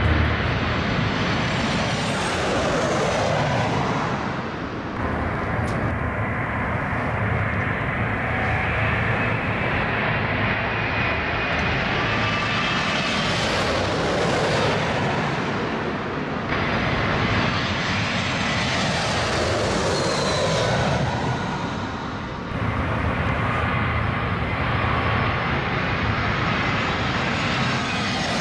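Twin-engine jet airliner on final approach passing low overhead with landing gear down: a continuous turbofan roar with a faint whine, swelling to its loudest about halfway through and easing off, with a few abrupt jumps in level.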